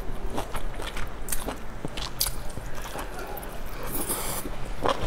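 Close-up eating sounds: chewing with scattered wet mouth clicks, then a bite into a large bun soaked in chili sauce about four seconds in, with a short hissing slurp.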